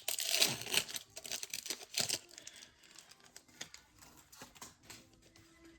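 Foil wrapper of a Panini Prizm baseball card pack crinkling and tearing as it is opened, loudest in the first two seconds, then dying down to softer, scattered rustling.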